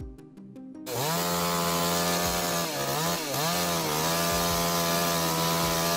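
Chainsaw running at full throttle, cutting in loud and sudden about a second in, its pitch dipping briefly a few times as the chain loads up in the wood.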